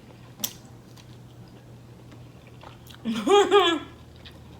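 A person chewing food with their mouth close to the microphone, with a sharp mouth click about half a second in. About three seconds in comes a short hummed "mm" that rises and falls twice.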